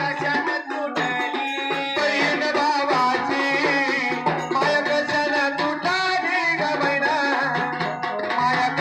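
Live Marathi jagran folk song: singing over electronic keyboard and a hand-drum rhythm.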